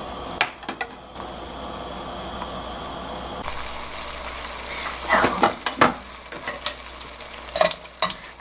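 Duck soup bubbling in a metal pot, with a ladle clinking a couple of times under a second in. From about five seconds in, sharp snips of kitchen scissors cutting duck meat in the leftover broth, over its bubbling.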